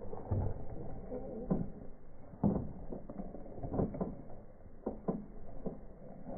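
A goat biting and chewing leafy plant stems: a series of short, irregular crunches and rustles.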